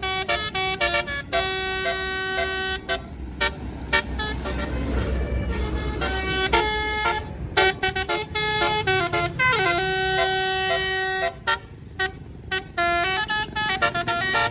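Indonesian tour bus's telolet basuri horn playing a melody of quick stepped notes in repeated phrases. Partway through, the tune breaks off for a few seconds, leaving a low rumble from the bus, then starts again.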